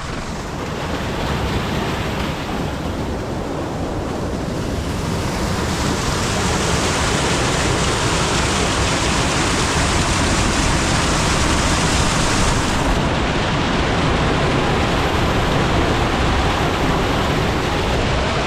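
Waterfall: a steady rush of falling water that swells over the first few seconds, then holds.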